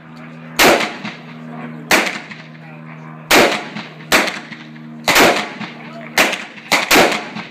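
AR-15-style semi-automatic rifle firing single shots at an uneven pace, eight shots in all, the last three close together. A steady low hum runs underneath.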